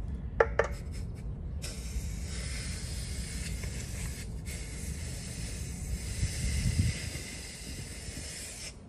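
Air hissing steadily through the air valve of a well pressure tank while its air precharge is being set to 35 PSI, with a brief break about halfway. Two sharp clicks come just before the hiss starts.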